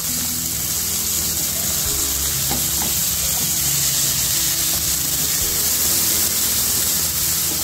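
Diced onions frying in hot oil in a kadai with garlic and green chillies: a steady sizzle, with a slotted spoon stirring and scraping against the pan a couple of times in the middle.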